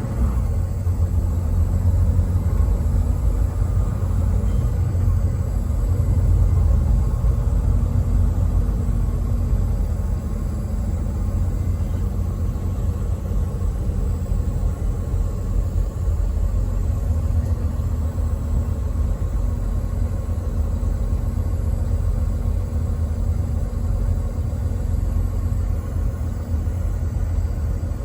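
Steady low rumble of a truck on the move: engine and road noise with no horn blowing.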